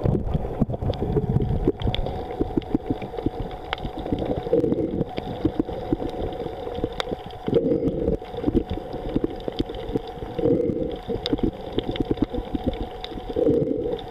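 Underwater noise picked up by a camera held in the sea: water crackling and rushing against the housing, with a faint steady hum and a muffled swell about every three seconds.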